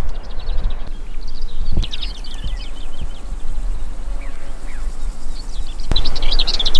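Small birds chirping in short, rapid runs over a steady low wind rumble on the microphone; the chirping grows louder near the end.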